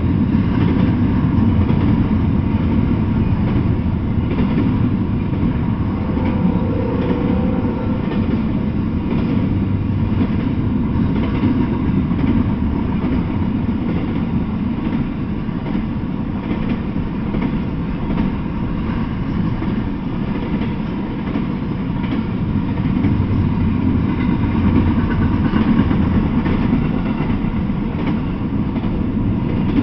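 Double-stack intermodal freight train rolling past: a steady, unbroken rumble of steel wheels on the rails and the well cars running over the track, heaviest in the low range.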